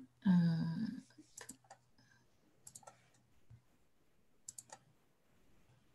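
Faint clicking at a computer: three small clusters of two or three quick clicks, a second or so apart.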